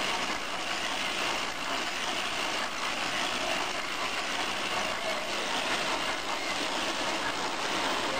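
Small circular scarf-knitting machine running steadily, its electric motor and belt drive turning the needle cylinder with a continuous mechanical noise.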